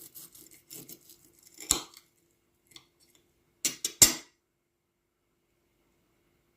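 A knife cutting through a crisp, breadcrumb-coated fried chicken nugget on a plate: scratchy crackling of the crust with a knock of the blade for about two seconds, then three or four sharp knocks of knife on plate near the middle.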